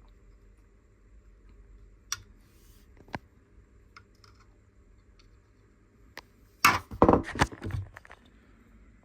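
Hand tools and small parts clicking and clattering on a workbench while a circuit board is being worked on: two sharp clicks, then a burst of irregular clatter near the end.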